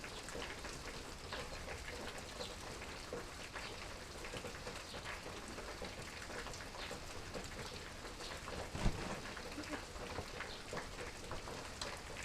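Steady rain falling, with many close drops heard as small sharp ticks. One brief low thump comes about nine seconds in.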